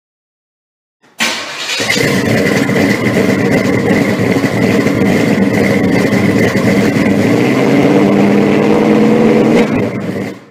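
A car engine comes in abruptly about a second in and runs loud and steady, with a steady high whine over it, its pitch rising a little near the end before it cuts off.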